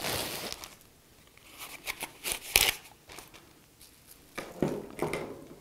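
Clear plastic packaging bag rustling and crinkling as a digital readout read head and its cable are unwrapped and pulled out of it, with several sharp crackles, the loudest about two and a half seconds in.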